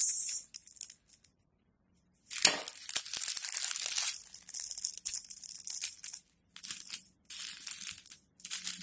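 Small plastic bags of resin diamond-painting drills crinkling as they are handled, in several rustling bursts with a pause about a second in.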